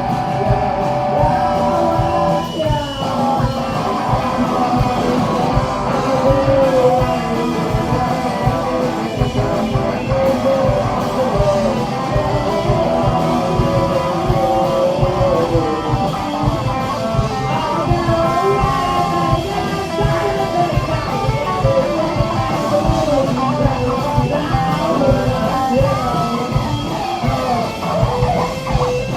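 Rock band playing live and loud: electric guitar and drums, with singing.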